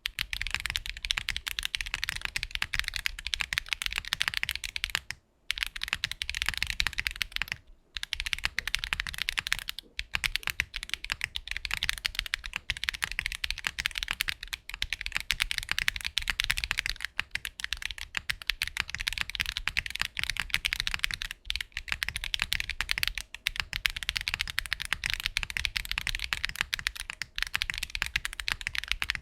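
Mechanical keyboard fitted with Wuque Studio WS Brown tactile switches, typed on fast and continuously. There are brief pauses about 5 and 8 seconds in.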